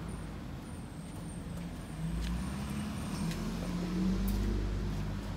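A road vehicle's engine hum that swells about two seconds in and fades near the end, with a few light footsteps on concrete.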